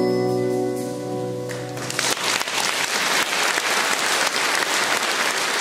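A band's final chord held and dying away, then audience applause breaking out about two seconds in and continuing.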